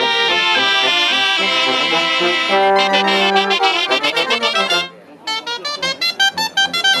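A cobla, the Catalan sardana band of reeds (tibles and tenores), trumpets, trombone, fiscorns and double bass, playing a sardana live. It plays held chords, breaks off briefly about five seconds in, then goes on with quick, detached notes.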